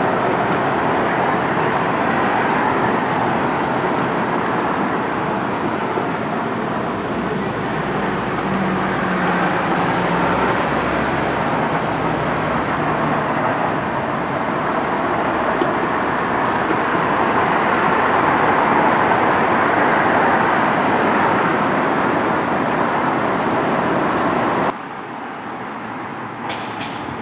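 Steady road traffic noise, with a vehicle's engine hum passing through for several seconds in the middle; the noise drops off suddenly near the end.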